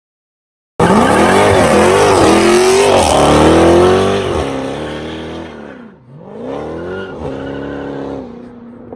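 Car engine revving hard and accelerating, starting suddenly about a second in. Its pitch rises and falls several times, with a hissing tyre noise under it for the first few seconds. It drops away about six seconds in, then picks up again more quietly.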